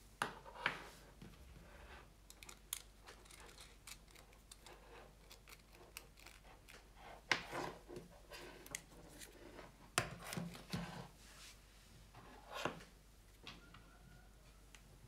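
Handling noise from fitting a portable battery spot welder into its small metal case: scattered light clicks, taps and rattles of the case, cables and small parts, with a few louder knocks near the start, about seven seconds in and at ten seconds.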